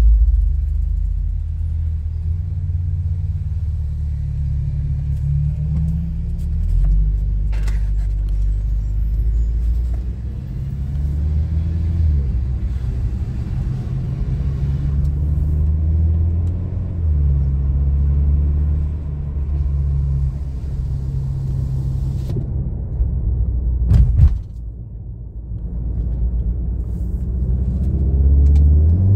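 Modified VW Golf 7.5 R's turbocharged 2.0-litre four-cylinder engine, fitted with an aftermarket downpipe, running at low revs: a steady low drone mixed with road rumble, its pitch stepping up and down. There is a single sharp knock about 24 seconds in, and the revs start to rise near the end.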